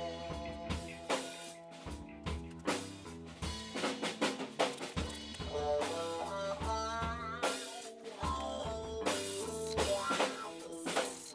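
Background music: a drum-kit beat with a bass line and melodic instruments.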